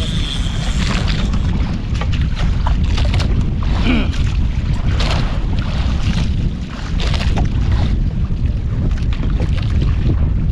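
Wind buffeting the microphone on a small fishing boat at sea, a heavy, uneven rumble, with water splashing and lapping against the hull.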